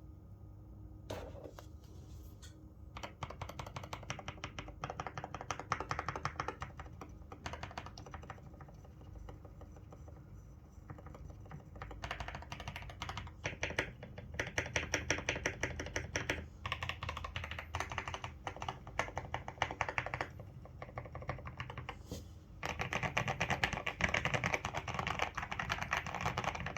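Typing on a KBD75 v3.1 mechanical keyboard: runs of rapid keystrokes broken by short pauses. The clicks are sparse at first and come thickest near the end.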